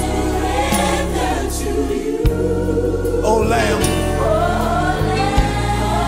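Gospel choir singing with instrumental backing, the sung lines moving over steady low bass notes that change every second or so, with a few short knocks.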